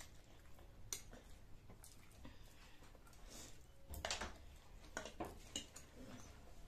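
Quiet eating sounds of stir-fried noodles being slurped and chewed, with a louder slurp about four seconds in and scattered light clicks of a fork and chopsticks against the plates.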